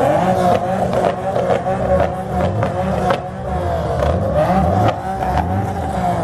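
Tuned import sports car engines running and revving as cars pull away, with irregular sharp cracks throughout.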